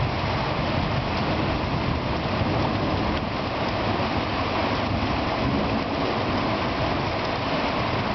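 Heavy rain falling steadily, a continuous even hiss with no distinct thunder clap.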